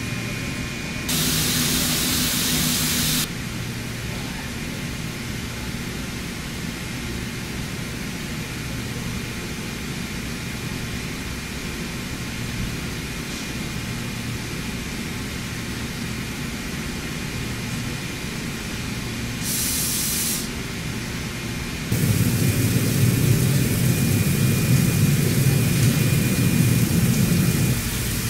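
CNC machine tools running with a steady hum, broken by two short bursts of hissing spray: one of about two seconds near the start and a briefer one past the middle. Near the end a louder rushing noise takes over as coolant floods a spinning threaded workpiece.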